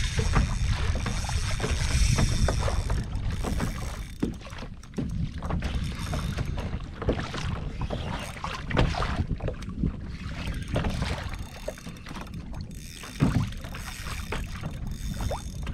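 Wind buffeting the microphone, gusting hardest in the first few seconds, over water sounds against a plastic fishing kayak while a hooked fish tows it. Scattered small knocks and clicks from the kayak and fishing gear, with one louder knock near the end.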